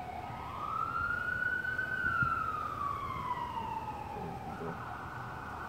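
Emergency vehicle siren wailing, its pitch sliding slowly up and then back down, switching near the end to a faster, rapidly warbling pattern.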